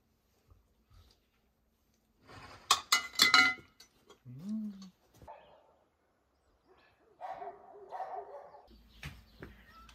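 Metal tongs clattering against a large metal pot, a quick run of sharp, ringing clanks. Fainter animal calls follow.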